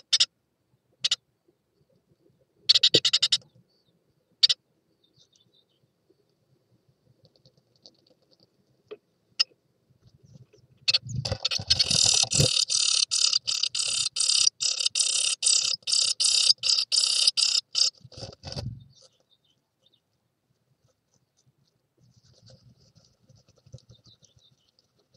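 Newly hatched tit nestlings begging inside a wooden nest box. A few short bursts of rapid high cheeping come first, then about seven seconds of loud, fast, continuous begging calls as a parent arrives with food. Low thumps and rustling from the adult bird moving in the box come at the start and end of the begging.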